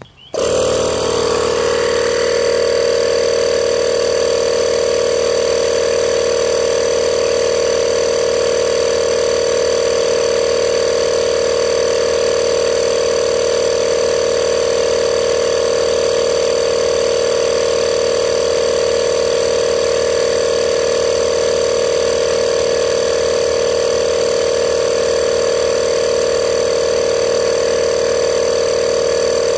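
12 V portable air compressor starting up and running steadily, pumping air into a 40-litre plastic bag for a fill-rate test. It comes on suddenly right at the start and then keeps one even, loud drone with no change in pitch.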